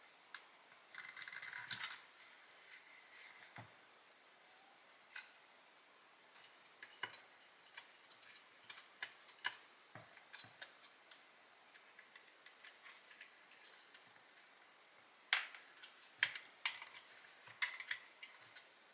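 Light, irregular clicks and taps of small tools and parts being handled on a workbench, with a short scraping rustle about a second in and a few sharper clicks near the end.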